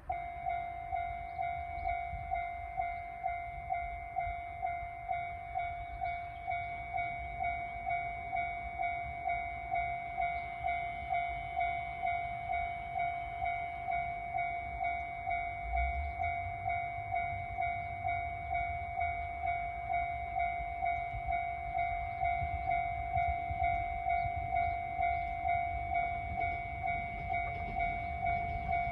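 Railway level crossing alarm ringing with a steady pitched 'kan-kan' at about two strikes a second, the warning that a train is approaching. A low rumble builds underneath near the end as the diesel railcar nears the crossing.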